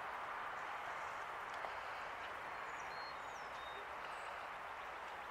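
Steady rushing hiss of a fast-flowing river, with a few faint, short bird chirps around the middle.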